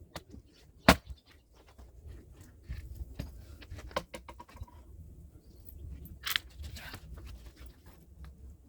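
A hand axe strikes a log with one sharp, loud crack about a second in, followed by lighter knocks and a short rustling clatter as the wood is handled, all sped up to double speed.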